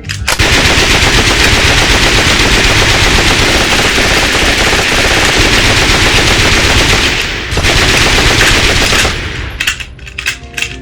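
Dense, near-continuous machine-gun and rifle fire, recreated as a sound effect. It starts about a quarter second in and breaks off briefly around seven and a half seconds. It comes back, then thins to scattered shots near the end as music returns.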